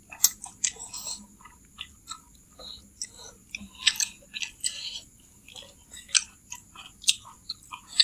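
Close-miked mouth sounds of people eating chicken noodles: noodles slurped in near the start, then irregular wet chewing and lip smacks.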